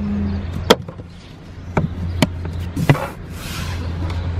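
Things being handled in a wooden storage drawer packed with clothes: four or five sharp knocks and clicks, with a brief rustle of cloth a little past the middle, over a steady low hum.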